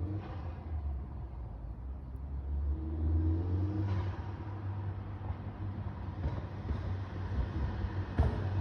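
1.8-litre turbocharged four-cylinder (AGU) engine of a Mk4 Golf GTI running through a 3-inch downpipe and muffled 3-inch catback exhaust, with a steady low rumble and a brief rev about three seconds in. A sharp click comes near the end.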